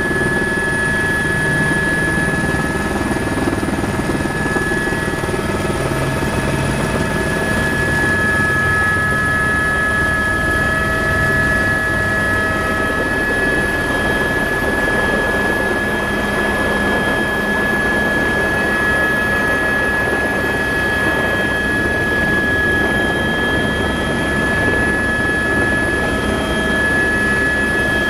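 Helicopter engine and rotor noise heard inside the cabin, loud and steady, with a constant high whine over it, as the helicopter comes in to land.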